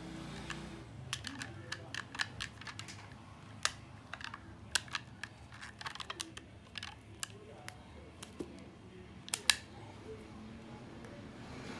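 Rubber bands being stretched and snapped around a smartphone, a string of irregular sharp clicks and snaps with two loud snaps close together near the end, clamping the freshly glued screen in place.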